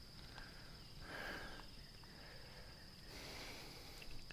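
Quiet creekside ambience: a steady high-pitched insect drone, with two faint soft swells of noise about one and three seconds in.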